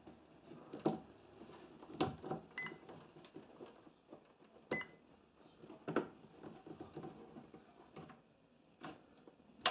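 Faint clicks and taps of multimeter test probes pressed against a welder's on/off switch terminals, with two very short high chirps. The continuity buzzer never sounds a steady tone: there is no continuity through the switch, the sign that the switch has failed.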